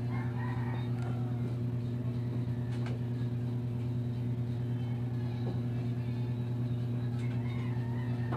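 A steady low machine hum at an even level. A few faint, brief higher sounds come over it about a second in and again near the end.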